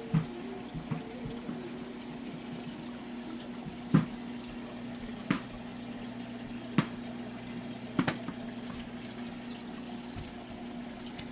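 Aquarium water moving with a steady hum from the tank's pump, broken by about five sharp clicks spread a second or more apart.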